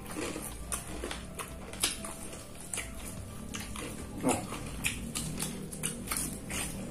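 Close-up eating sounds: chewing, lip smacks and crunching of crispy fried chicken wings, as irregular sharp clicks and crackles, with the paper wrapper rustling as it is handled. A short pitched mouth sound that slides down comes about four seconds in.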